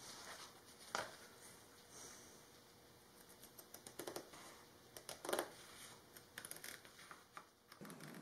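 Scissors cutting a rubber drawer-mat liner sheet: faint snips and clicks, a sharper one about a second in, more around four and five seconds, and a run of small quick snips near the end.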